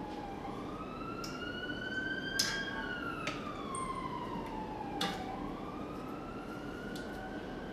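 Emergency-vehicle siren wailing, slowly rising and falling in pitch, about five seconds per rise and fall. A few sharp metallic clicks, the loudest about two and a half and five seconds in, come from the support-stand clamp being handled and tightened.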